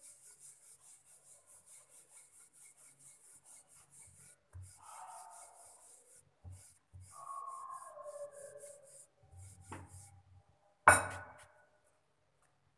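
A wooden rolling pin rolls out a stuffed paratha on a rolling board, making soft rubbing strokes, about four a second at first and then in looser runs. A single sharp knock comes near the end.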